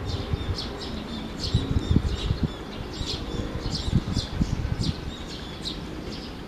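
A passenger train rolls away along the track with a low rumble and irregular knocks from its wheels, fading slowly. Over it a high chirp repeats about twice a second, from a bird or an insect in the greenery.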